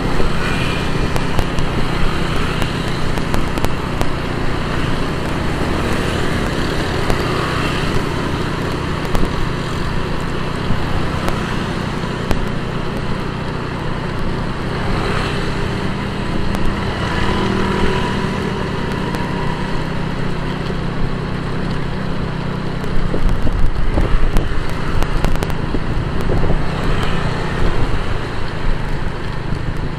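Motorcycle riding through city traffic: the bike's engine running steadily amid road and traffic noise, louder and rougher for a few seconds in the last third.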